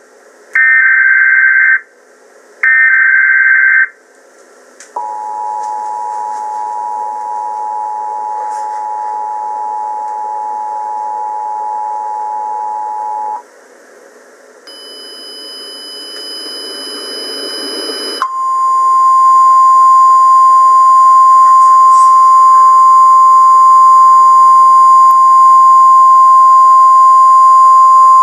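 Emergency Alert System tornado warning tones: two short bursts of the digital header data tones, then the two-tone EAS attention signal held for about eight seconds. After a rising hiss, a single loud steady tone, the weather-radio-style alert tone, sounds from about eighteen seconds in.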